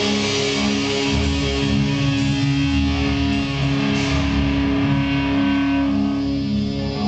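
Live alternative rock band playing: electric guitar and bass over held keyboard-like notes, with a repeating pulsing note figure; the bright high-pitched wash thins out about six seconds in.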